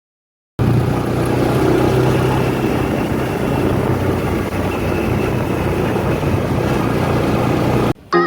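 Motor vehicle engine running steadily, with a constant low hum under a loud wash of road and wind noise. It starts abruptly after a brief silence and cuts off shortly before the end.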